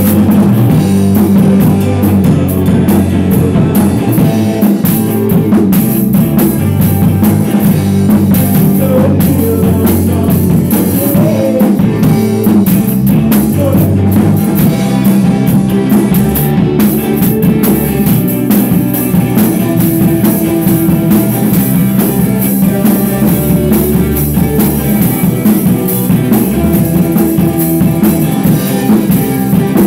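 Rock band playing loud and without a break: a drum kit and an electric guitar.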